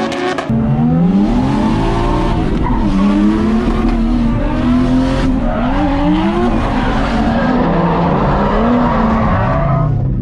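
Drift car being driven sideways: the engine revs rising and falling again and again through the slides, over the hiss and squeal of skidding tyres.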